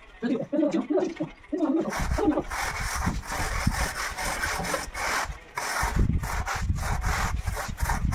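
A hand tool scraping back and forth over sand-and-cement mortar in regular strokes, about two a second, as the floor bed is spread and levelled.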